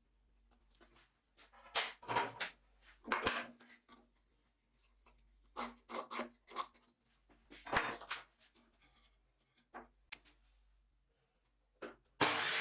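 Wood and tools being handled on a workbench: scattered knocks, scrapes and rubs, irregular and of varying strength. Near the end a power tool starts up and runs steadily.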